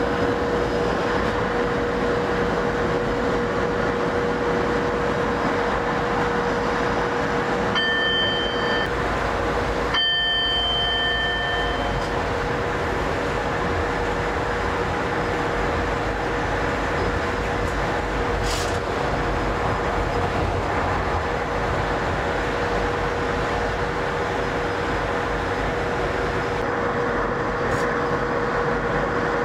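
Steady running noise of a Class 92 electric locomotive on the move, heard from inside its cab, with a steady whine throughout. Short high beeps sound about eight seconds in and again around ten to twelve seconds.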